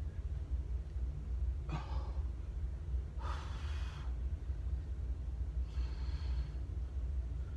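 A man breathing hard through a held forearm plank: three loud, noisy breaths about two seconds apart, over a steady low hum.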